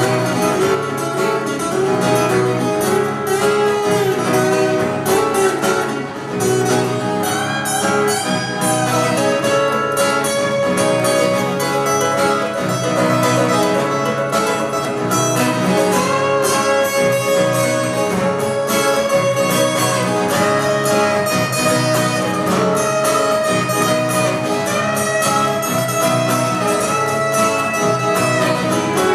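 Live guitar music: plucked notes played steadily, with sustained melodic lines above them.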